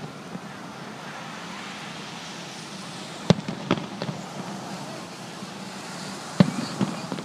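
Aerial firework shells bursting: two loud bangs about three seconds apart, each followed by a couple of smaller cracks.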